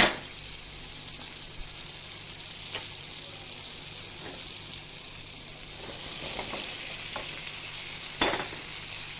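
Onion and tomato masala sizzling in oil in a wok, a steady frying hiss. A sharp knock against the wok right at the start and another about eight seconds in, with a few lighter taps between.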